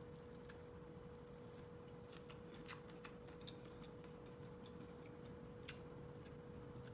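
Faint, irregular little clicks of teeth biting and snapping kernels off a steamed, buttered corn cob, a few scattered over a few seconds, over a steady faint hum.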